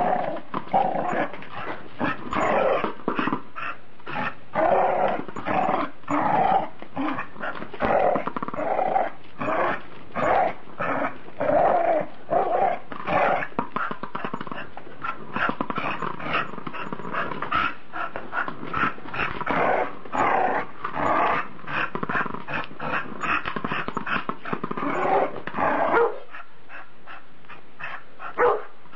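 Dogs barking and growling in play, a dense run of short, rapid barks that eases off a few seconds before the end.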